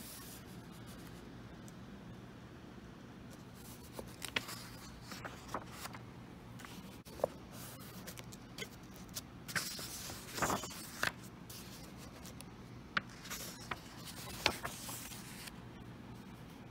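Paper rustling and book pages being turned and handled: a scatter of soft swishes and small clicks between about four and fifteen seconds in, over a faint steady low hum.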